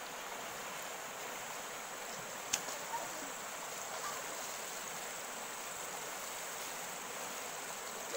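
Shallow river flowing with a steady rush of water, with a single sharp click about two and a half seconds in.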